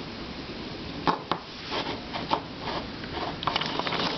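Small plastic keychain puzzle cubes being picked up and handled, clicking and clacking against each other in a string of separate knocks.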